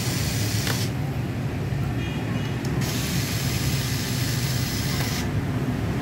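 A small electric precision screwdriver unscrewing laptop motherboard screws, over a steady low rumble.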